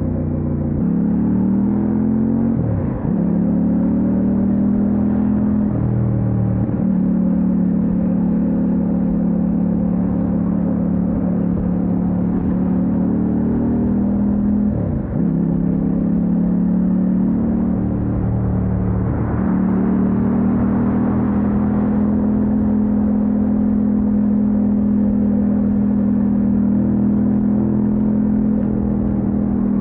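Kove 800X Pro's parallel-twin engine running while the motorcycle is ridden. The engine note dips sharply and climbs back a few times, as with gear changes, then holds a steady pitch through the last third.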